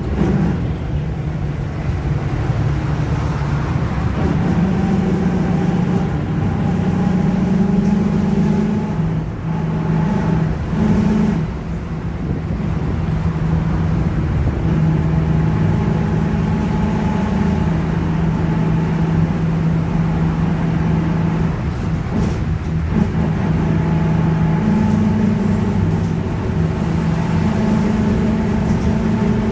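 Mercedes-Benz OF-1721 BlueTec5 city bus under way: the diesel engine runs steadily while the differential roars with a droning whine that drifts up and down in pitch with road speed. It eases off briefly about ten seconds in.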